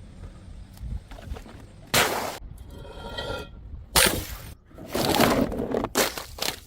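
Glass bottles smashing: three sharp crashes about two seconds apart, with noisy crunching in between, and a short ringing tone between the first two.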